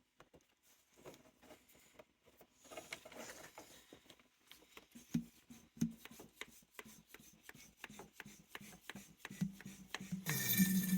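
Rubbing and clicking of coolant hoses and a hand vacuum pump being worked, building to a louder gurgling rasp about a second before the end as the pump sucks the antifreeze out of the line.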